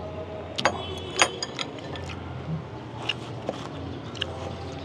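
Tableware clinking during a hotpot meal: two sharp, ringing clinks about a second in, then a few lighter taps, over a steady low hum.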